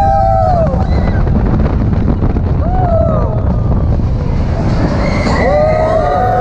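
Roller coaster train rumbling and rattling along its track, with wind buffeting the microphone. Riders scream over it: a long held scream that falls away about half a second in, short rising-and-falling cries near the middle, and another scream that starts near the end and holds.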